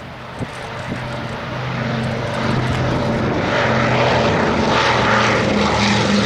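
Consolidated PBY-5A Catalina's two Pratt & Whitney R-1830 Twin Wasp radial engines running in flight, growing steadily louder over the first few seconds as the aircraft approaches, then holding loud and steady.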